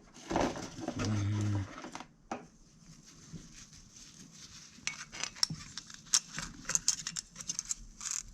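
Scattered small metal clicks and taps of hand work on a carburetor as parts are handled and fitted. A brief murmur of voice comes in the first two seconds.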